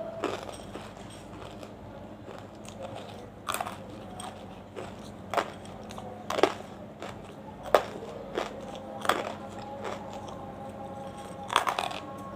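Close-up biting and crunching of banslochan (tabasheer, the hard chalky silica lumps from bamboo). Sharp crunches come at irregular intervals of about one to two seconds, with quieter chewing in between.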